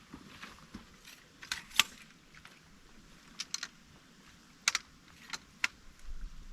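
Scattered sharp clicks and taps, about seven at irregular intervals, over a faint steady hiss.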